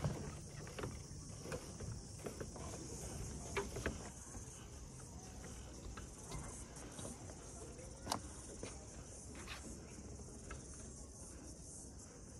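A steady, high-pitched chorus of insects in the forest, with scattered clicks and knocks from a stroller's wheels rolling over the wooden slats of a suspension walkway.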